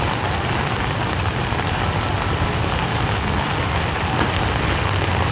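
Steady rain falling: an even hiss with a low rumble underneath.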